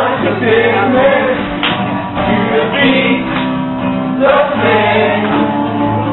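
A group of male voices singing together to a strummed acoustic guitar, with long held notes.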